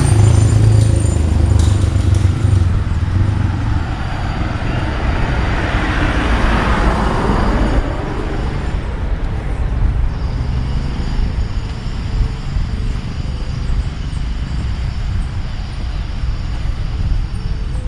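Street traffic: a car passes close by, its tyre noise swelling and fading about six to eight seconds in, over a steady low rumble of traffic.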